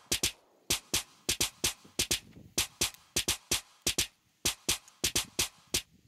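Background music: a bare drum-machine beat of sharp, dry clicks, about three a second and often in pairs, with little else between the hits.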